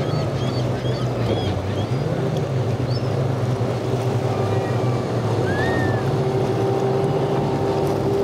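Single outboard motor on a center-console boat running under way through choppy water, a steady low drone over the wash of spray and wind. From about two seconds in, an engine whine joins it and grows stronger.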